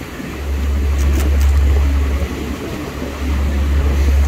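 Sportfishing boat under way: a heavy low rumble with wind on the microphone and the rush of water from the wake, with a few light clicks about a second in.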